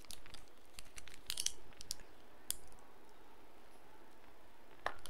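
Chocolate bar wrapper crinkling and crackling in short bursts as it is handled and unwrapped, busiest about a second and a half in, then dying away to an occasional faint click.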